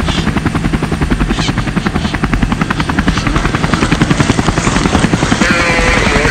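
Helicopter rotor chop, a fast steady pulsing, laid over the footage as in a live aerial broadcast.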